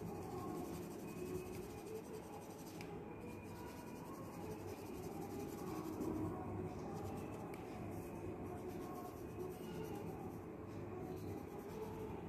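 Graphite pencil shading on drawing paper: a quiet, steady rubbing of the pencil tip across the paper.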